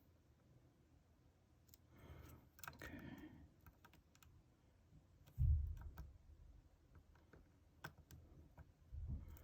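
Faint small clicks and scrapes of a lock pick and tension wrench working in the keyway of a Yale euro cylinder, with a dull low thump about five and a half seconds in, the loudest sound, and a softer one near the end.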